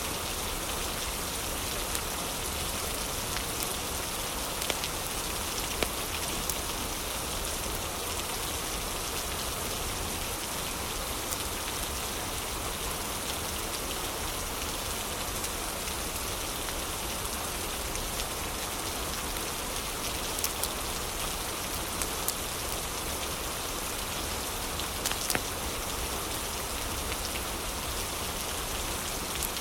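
Steady heavy rain falling, an even hiss of rain on surfaces. A few louder, sharp ticks stand out here and there.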